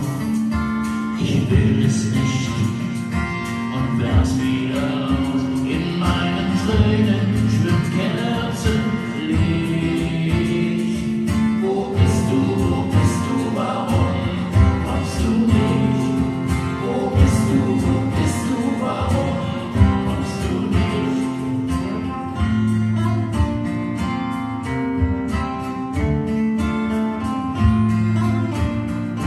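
Live song: a man singing over guitar accompaniment, the voice stopping about two-thirds of the way in while the guitar plays on.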